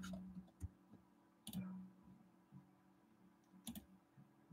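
Near silence: room tone with a faint low hum and a few faint clicks.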